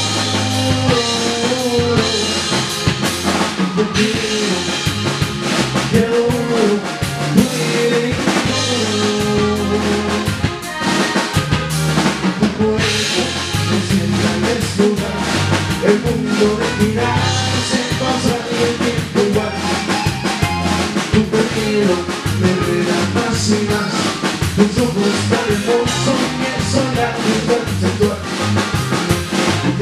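A norteño band playing live: button accordion, guitar, electric bass and a drum kit keeping a steady beat.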